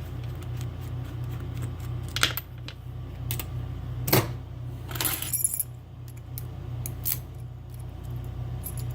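Small metal clicks and clinks of a Schlage Everest lock cylinder being taken apart, its tailpiece being removed. There are a few separate sharp clicks, the loudest about four seconds in, and a short run of clinking just after, over a steady low hum.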